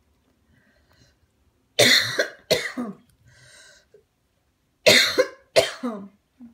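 Small dog coughing: two coughs in quick succession, then two more about three seconds later.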